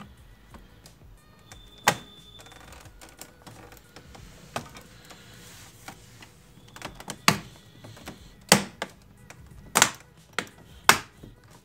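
Plastic bottom cover of a Lenovo Ideapad 100S laptop pressed down by hand, its clips snapping into place with sharp clicks. About half a dozen clicks, coming closer together and louder in the second half.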